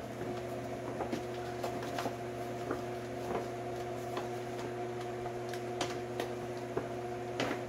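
Scattered light clicks and taps from hands handling metal lock parts and wiring inside a car door, over a steady hum.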